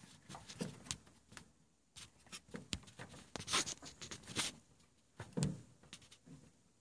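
Faint, scattered rustles and soft clicks of handling noise, with a few slightly louder ones in the second half.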